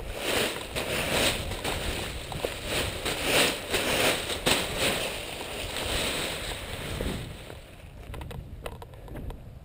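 Wind rushing over a moving camera's microphone in irregular gusts, mixed with handling noise; it eases off about seven seconds in, leaving a few sharp clicks.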